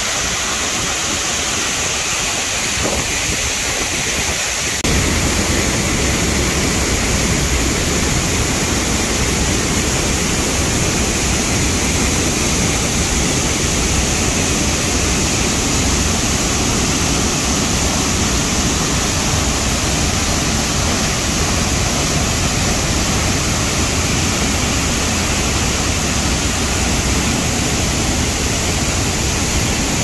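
Large waterfall rushing steadily, heard close up in its spray zone. About five seconds in the sound suddenly gets louder and deeper, then holds steady.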